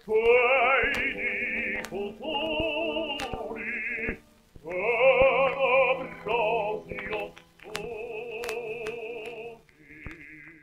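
Male opera voices singing short phrases with heavy vibrato over an orchestra, from an old 78 rpm record transfer with surface clicks. A softer held note comes near the end.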